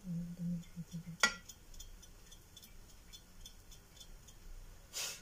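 Metal spatula clinking and scraping against a multi-cup pancake pan: one sharp clink about a second in, light ticks after it, and a louder scrape near the end.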